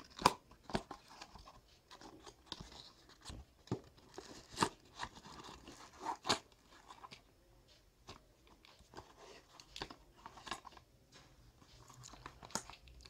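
Plastic packet being handled and opened by hand: irregular crinkles and sharp crackles of plastic.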